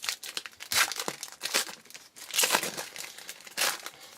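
Baseball card pack wrapper crinkling and tearing as the pack is opened, a run of irregular crackles with louder bursts about a second in, midway and near the end.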